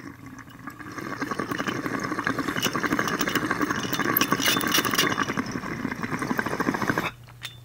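Water in a dab rig (glass water pipe) bubbling steadily as a dab is inhaled through it, a fast, continuous burble that stops abruptly about seven seconds in.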